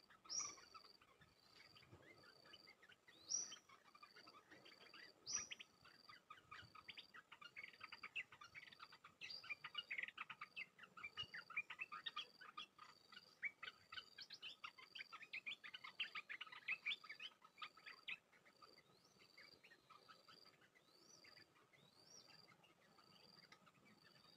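Olive-winged bulbuls calling to lure a wild bird to a caged decoy. A few loud rising calls come in the first six seconds, then a long run of fast chattering notes until about three-quarters of the way through. Under it all, a short high note repeats evenly about every two-thirds of a second.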